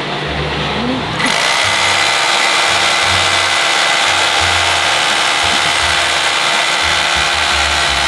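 Bosch rotary hammer drill switching on about a second in and then running steadily with a whining note, held against a motorcycle engine in an attempt to turn it over and start it.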